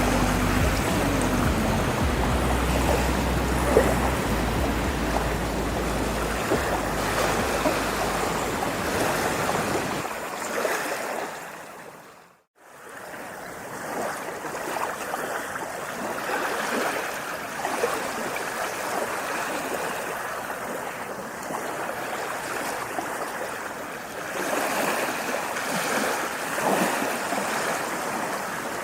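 Rushing water, ocean surf with a steady low rumble. About twelve seconds in it fades out completely, and a lighter rushing water sound without the rumble fades back in.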